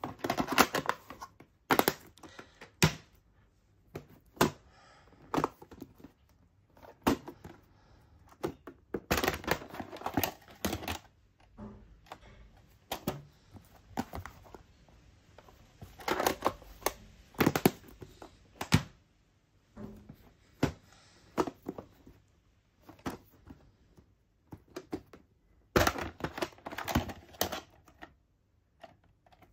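Clear plastic VHS clamshell cases and cassettes being handled: irregular clicks, snaps and plastic clatter as a case is opened and a VHS cassette is lifted out, in several busy bursts with quieter gaps between.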